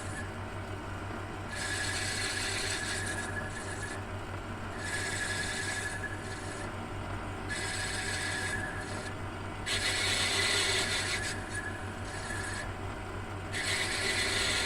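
Metal cutting tool scraping in a brass clock plate, enlarging a worn pivot hole to take a new bush, in repeated spells of a second or two about every three seconds. A steady low hum runs underneath.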